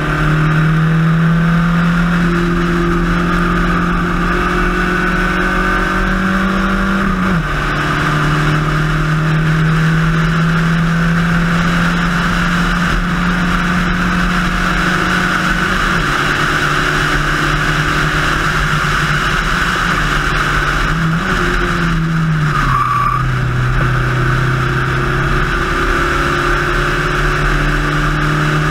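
Spec Racer Ford race car's engine heard onboard, running at steady high revs with road and wind noise. The note dips slightly about seven seconds in and again later, then drops lower about three-quarters of the way through before rising a little.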